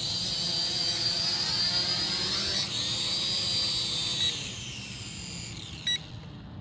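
Small quadcopter drone (Snaptain SP600) with its motors and propellers whining as it comes down to land on a low battery. About four seconds in, the whine drops in pitch and fades as the motors spin down, and a short beep sounds near the end.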